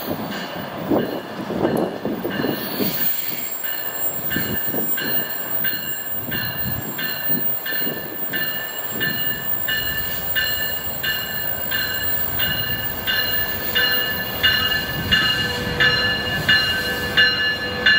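Bilevel passenger train approaching with a bell ringing about twice a second, growing louder as it nears, over the rumble of wheels on rail.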